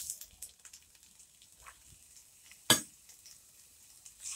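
Chopped onion frying in hot ghee in a wok, with a faint sizzle and small crackles, and a spatula stirring. There is one sharp clack about two and a half seconds in.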